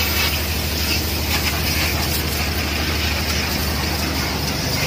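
A steady motor hum under a continuous hiss of spraying water as a car is hosed down.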